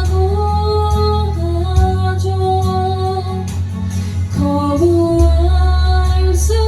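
Karaoke backing track of a slow ballad playing, its melody line moving in held, stepped notes over a steady bass.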